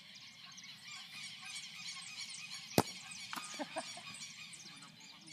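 A football kicked barefoot: one sharp smack of foot on ball nearly three seconds in, over the steady chirping of many small birds.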